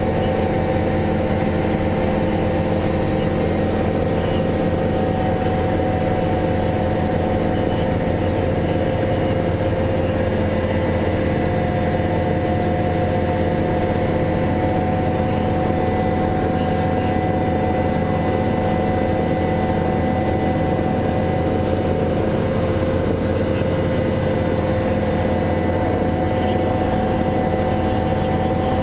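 Vehicle engine running steadily, a constant hum with no change in pitch or level.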